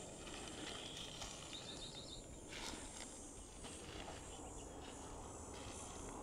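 Faint outdoor ambience: steady low background noise, with a brief high whistle about a second in and a short run of high chirps soon after.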